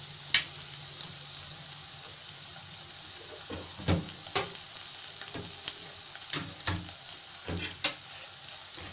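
Sliced onion and green chilli sizzling gently in a little oil in a frying pan, a steady hiss, with scattered soft knocks.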